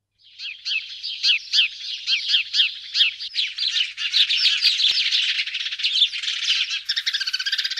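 Birds singing: a string of quick, high, repeated falling chirps at about three a second, turning into denser chatter and then a fast trill near the end.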